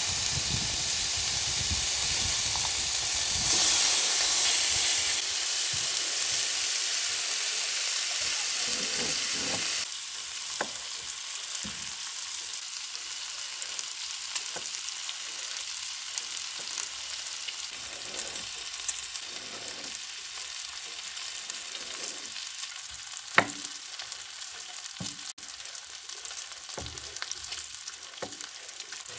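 Bacon sizzling steadily on a hot steel griddle for about the first ten seconds. Then the sizzle drops to a fainter hiss while a knife slices raw potato on a wooden cutting board, the blade tapping the board in scattered sharp clicks.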